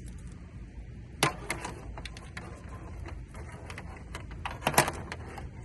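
Clicks and rattles of wiring and plastic connectors being handled, with two louder clatters about a second in and near the end, over a steady low background rumble.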